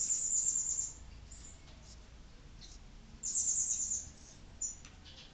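Whiteboard marker squeaking across a whiteboard as lines are drawn. There are two strokes of under a second each, one at the start and one about three seconds in, with short squeaks in between.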